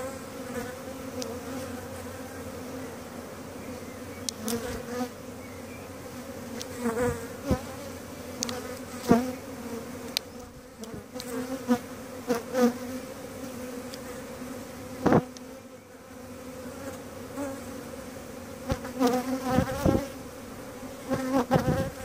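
Steady hum of a large mass of European honeybees at a hive entrance, with louder buzzes now and then as single bees come close.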